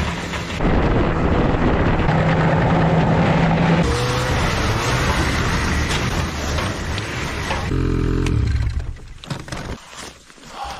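A motor vehicle's engine running loudly in a few edited stretches, its steady drone changing abruptly at each cut, then falling away near the end.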